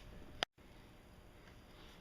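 A single sharp click about half a second in, with the sound dropping out for an instant, then faint steady room noise. No engine cranking or running is heard.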